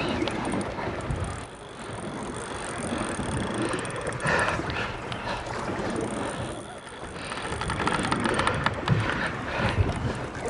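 Spinning reel being cranked and clicking under the load of a hooked tuna, over steady boat and wind noise.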